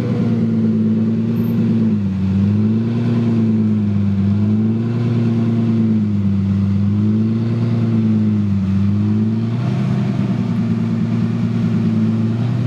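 The 6.0-litre V12 of a Lamborghini Diablo VT, running through a Quicksilver exhaust, idling at the tailpipes. Its pitch rises and falls gently every second or two, then holds steady near the end.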